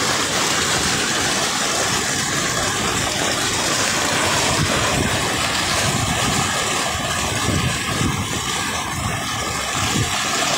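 Muddy floodwater rushing across a road and pouring over its edge: a loud, steady rush of water.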